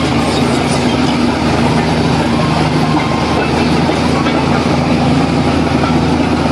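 Heavy diesel engine of earthmoving machinery running steadily, with a dense rattling clatter over it.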